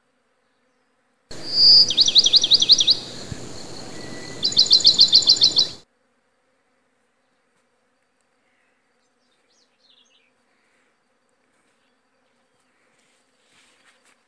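Two rapid trills of high, quick down-sweeping chirps, about ten notes each, a couple of seconds apart, over a hiss that starts and stops abruptly.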